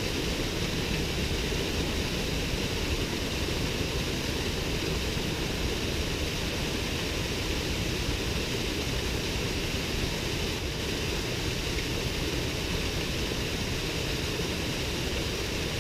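Small waterfall pouring into a stream: a steady, unbroken rush of falling water.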